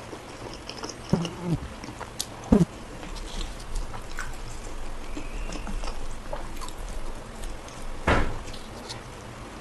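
Close-miked eating: paratha being chewed, with wet mouth noises and a few sharper smacks or gulps. The loudest comes about eight seconds in.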